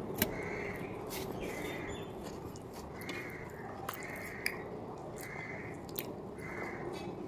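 Mouth sounds of a man chewing a bite of aloo paratha, with a few sharp clicks. A short sound repeats in the background about once a second.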